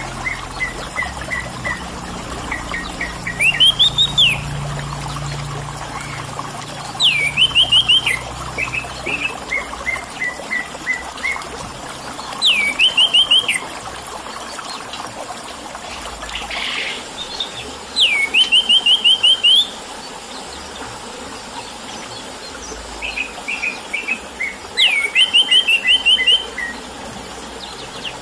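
Orange-headed thrush singing in loud, clear 'ngeplong' phrases: five times, a quick upward swoop followed by a rapid run of notes, with strings of shorter chirps between. A steady trickle of water runs beneath.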